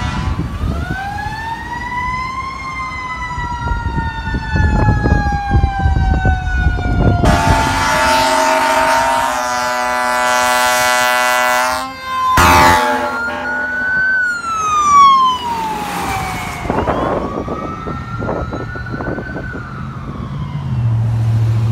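Fire engine sirens wailing as the trucks respond, the pitch rising and falling in long, uneven sweeps. A long steady horn blast runs from about eight to twelve seconds in, with a short sharp blast just after. A heavy engine drone comes in near the end.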